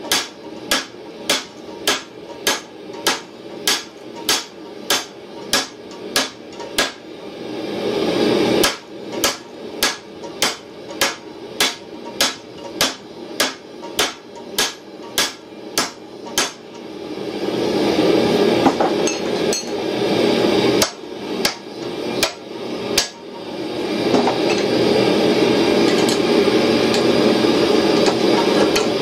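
Hand hammer striking a red-hot steel tow ball on an anvil, a steady run of about two blows a second for some sixteen seconds, then a few more blows later. A steady rushing noise swells up after the first run of blows and carries on under the later ones.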